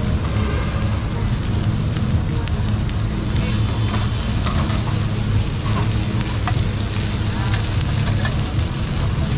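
Meat and oil sizzling and spitting on a smoking-hot iron sizzling plate, over a steady low rumble. A few light metallic clicks come through now and then.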